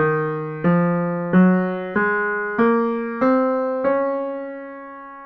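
Piano playing an ascending D-flat major scale one note at a time, about one and a half notes a second. It climbs from E-flat to the top D-flat, which is held and fades out.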